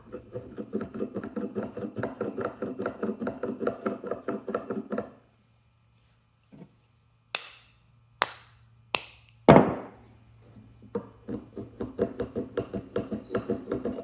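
A fast, even run of short rhythmic strokes, then four sharp wooden knocks a little under a second apart, the last the loudest. The knocks are a small oak mallet tapping a Japanese hand plane to set its blade after it was pulled back too far. The rhythmic strokes return near the end.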